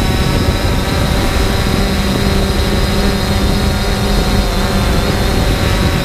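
3DR Solo quadcopter's electric motors and propellers whining steadily in flight, with a loud low rumble beneath, as picked up by the GoPro mounted on the drone itself.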